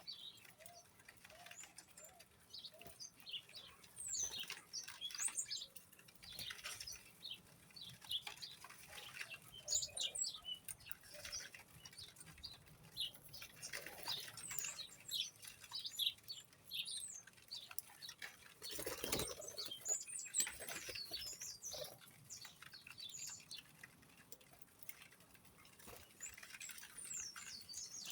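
A flock of small birds chirping, many short high calls overlapping without pause, with wing flutters and a single brief thump about nineteen seconds in.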